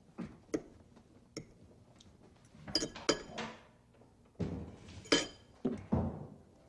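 A spoon or utensil clinking against a dish or bowl several times: short clicks and a few brief ringing chinks, with softer thumps and rustling between them.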